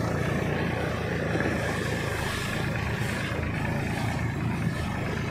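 Old tractor's engine running steadily under load as it tows a sleigh through snow.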